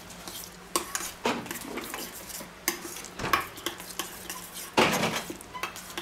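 Metal spoon stirring thick tomato paste in a stainless steel bowl: irregular scrapes and clinks of spoon against the bowl, the loudest about five seconds in.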